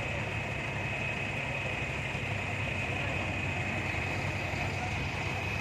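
Mobile crane's diesel engine running steadily while it holds and hoists a truck-mounted drilling rig, with a low rumble and a thin, steady high whine over it.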